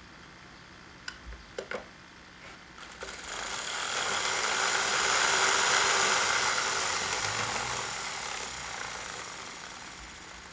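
Small homemade DC motor, its brushes running on a wire commutator, spinning fast with a whirring buzz that builds up about three seconds in, is loudest midway and dies away near the end. A few clicks come just before it starts.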